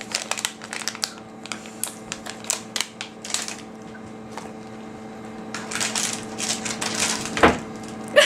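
Plastic snack wrappers crinkling and crackling as they are handled, in irregular clusters of sharp clicks, over a steady low hum.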